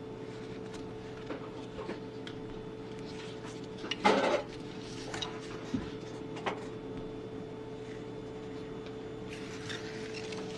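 Keihin CVK carburetor set being handled and worked by hand: scattered light clicks and taps of metal parts, with one louder rattle about four seconds in, over a steady hum.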